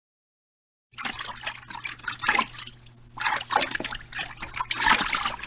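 Water splashing and trickling in irregular spurts, starting abruptly about a second in.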